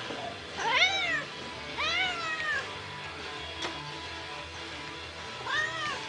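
House cat meowing three times: a short meow that rises and falls about a second in, a longer one about two seconds in, and a third near the end. A single sharp click comes between the second and third meows.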